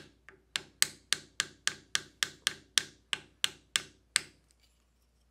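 Hammer tapping a plastic punch in a quick, even series of about fifteen sharp strikes, roughly three a second, stopping a little after four seconds in. The punch is drifting a pistol's factory front sight sideways out of its dovetail in the slide.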